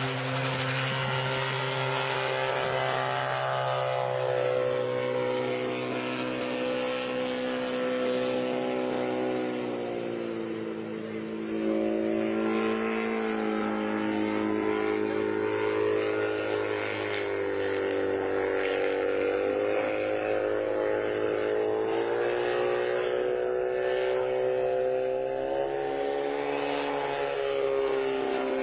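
Homemade helicopter's engine running continuously, its speed dropping and rising several times: it slows about ten seconds in, picks up again, then rises once more past the twenty-second mark.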